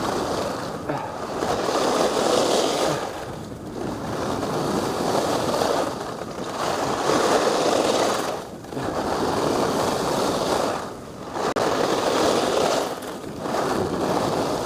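Skis carving turns on groomed corduroy snow, with wind rushing over a helmet-mounted microphone. The rushing, scraping noise swells and dips with each turn, about every two to three seconds.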